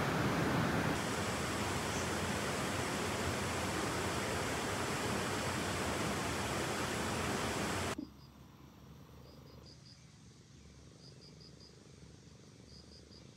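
A steady, loud rushing noise that cuts off abruptly about eight seconds in. It gives way to a quiet outdoor background with a cricket chirping faintly in short, high groups of three or four, repeating about every second and a half.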